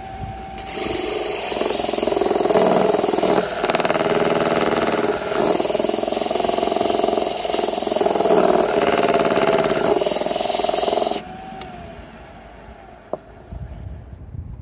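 A flat lap grinder's motor runs while a quahog shell is pressed against the wet spinning grinding disc, giving a loud, steady gritty grinding for about ten seconds. The shell is being used to smooth surface rust off the disc. The grinding stops about eleven seconds in, and the motor's hum dips and fades.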